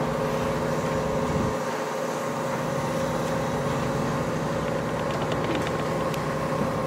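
Steady engine hum holding several even tones. Its deepest rumble drops away about a second and a half in, and a few faint ticks come near the end.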